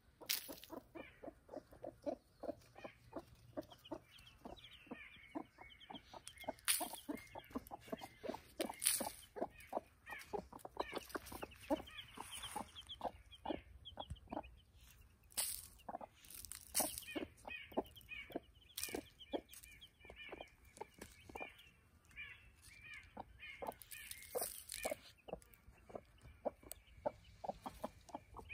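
Hens clucking in quick, soft runs while ten-day-old chicks peep high above them, with a few sharp clicks close to the microphone.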